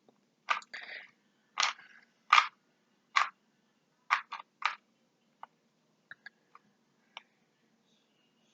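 Plastic speed cube being turned and handled: sharp clacks, singly and in quick pairs and triples, loud over the first few seconds, then fainter and sparser.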